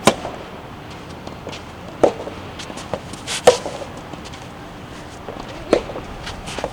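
Soft tennis rally: a hollow rubber soft tennis ball struck back and forth by rackets, four sharp pops with a short ring, roughly every one and a half to two seconds, over steady wind noise.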